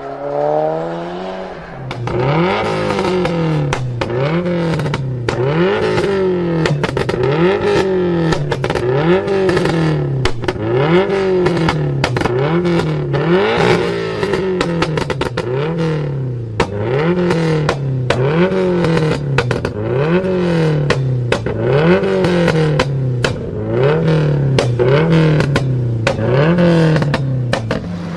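Car engine revved over and over, its pitch rising and falling about once every second and a quarter, with exhaust pops and crackles on the throttle lifts.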